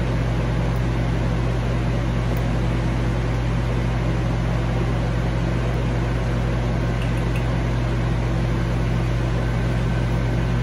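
Steady low hum with an even hiss over it, from a running fan or similar appliance. It holds at one level and pitch.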